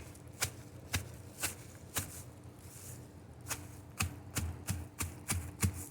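Sledgehammer head tapped down onto stale, dried-out bread in doubled plastic bags on stone, crushing it into breadcrumbs: four sharp knocks about half a second apart, a short pause, then quicker taps about three a second.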